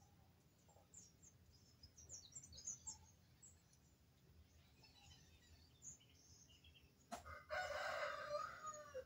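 A rooster crowing once near the end, a call of about a second and a half that drops in pitch as it closes, just after a sharp click. Small birds chirp faintly in the first few seconds.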